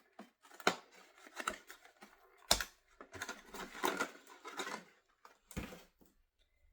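Hard plastic clicking, tapping and rustling as a doll is fitted onto its plastic display stand, with two louder knocks, the first about two and a half seconds in and the second near the end.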